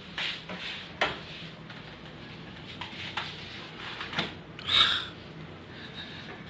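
Food containers being handled: a sharp click about a second in, a few light knocks, and a brief rustle near five seconds.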